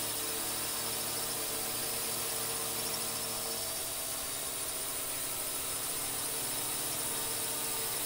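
Quadcopter drone's electric motors and propellers running steadily: a whine of several steady tones over a strong high hiss.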